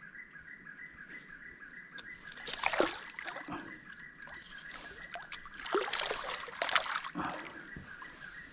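Splashing and sloshing in shallow water as a hooked electric eel thrashes on the line, in a burst about two and a half seconds in and again around six to seven seconds in. A steady, pulsing high chirring runs underneath.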